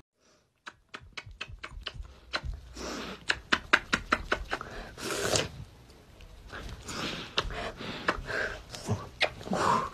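Rapid smacking kisses on a cat's face, several a second in quick runs with short breaks, starting about a second in.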